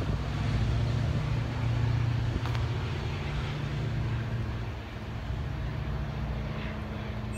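Metra F40PH-3 diesel locomotive's engine running with a steady low drone as the train pulls away, slowly fading.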